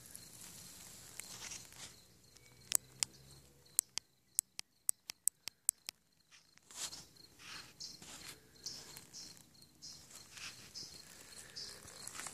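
Steady high insect trill in the background. A few seconds in comes a run of about ten sharp clicks over about three seconds, closing up as they go, followed by soft irregular rustling and scuffing.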